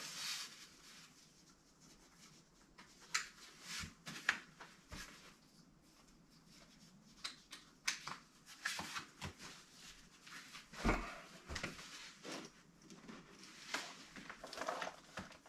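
Bluetti PV350 folding solar panel being handled and folded up: scattered faint rustles of its heavy nylon cover and clicks and knocks of the panels, with a dull thump about two-thirds of the way through.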